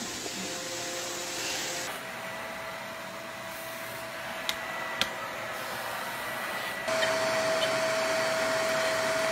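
Vacuum cleaner motor running with a steady hiss and whine, breaking at a cut about two seconds in and again at about seven seconds, when it turns much louder as the nozzle is right up close. Two sharp clicks sound near the middle.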